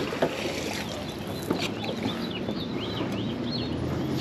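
A thrown fishing magnet hits the water with a short splash at the start. A bird then chirps a quick run of short high notes for a couple of seconds over a steady background.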